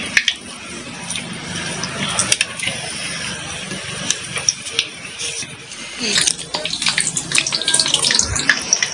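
Gram-flour pakoda batter with sweet potato leaves deep-frying in hot oil in a kadhai: a steady sizzle full of crackles and pops, which grow busier about six seconds in.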